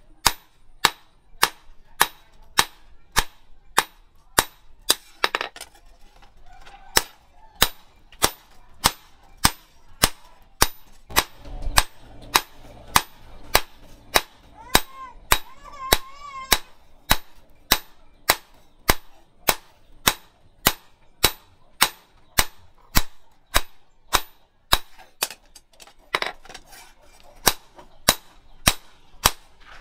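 Hand hammer striking a steel knife blade on a small stake anvil: steady, sharp metal-on-metal blows, about one and a half to two a second, with a couple of short pauses.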